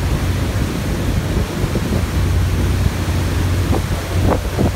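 Wind buffeting the microphone over water rushing past a moving boat, with a steady low engine drone underneath.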